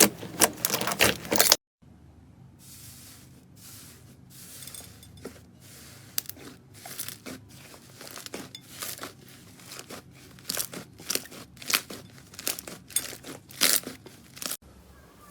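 Slime being squeezed and poked, making irregular crackling and popping clicks. A dense, loud run of crackles cuts off about a second and a half in; a quieter stretch of scattered pops follows and grows louder and busier before another cut near the end.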